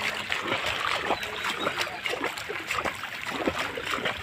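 Floodwater splashing and trickling in many small, irregular splashes.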